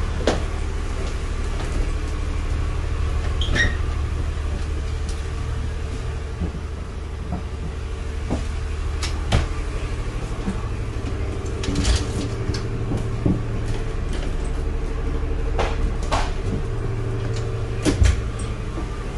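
Steady low drone of road and engine noise inside a moving vehicle, with a few sharp clicks and knocks scattered through.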